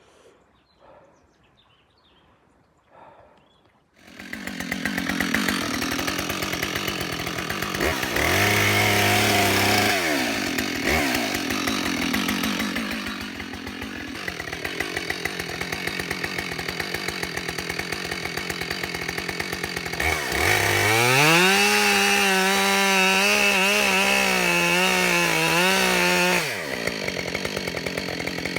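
Husqvarna 572 XP two-stroke chainsaw with a 24-inch bar, sawing into a tree trunk. It starts suddenly about four seconds in after a few quiet seconds with faint knocks. The engine revs up under the throttle twice, once about eight seconds in and again about twenty seconds in, holding high through the cut before dropping back near the end.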